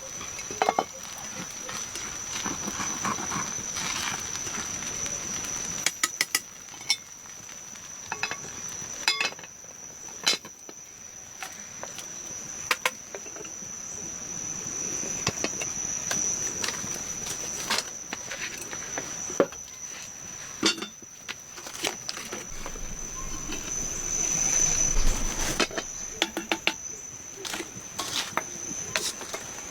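Insects shrilling, a steady high-pitched tone that never stops, with scattered sharp knocks and taps over it.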